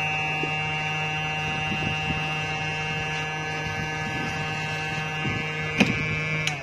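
Hot air rework gun blowing on a phone display panel, a steady whining hum that heats the panel to loosen its adhesive. A sharp click comes near the end, and the gun cuts off just before the end.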